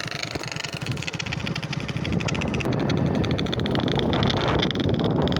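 Motorcycle running with a toy pipe fitted to its exhaust silencer, the exhaust putting out a fast, even pulsing that grows louder from about two seconds in.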